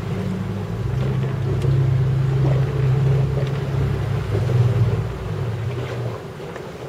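Inflatable boat's motor running, a steady low hum with wind and water noise over it; it drops lower about five seconds in.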